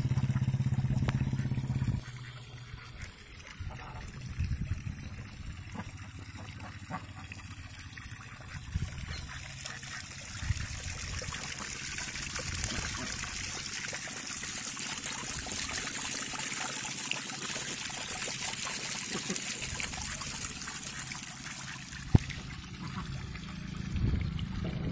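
Water gushing from a small pipe fountain and splashing into a shallow pond, getting louder and closer about halfway through. A steady low hum during the first two seconds stops suddenly, and there is a single sharp click near the end.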